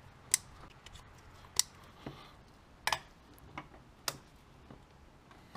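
A handful of sharp, separate clicks, spaced irregularly about a second apart with one quick double, from parts and hand tools being handled on an engine's coil packs.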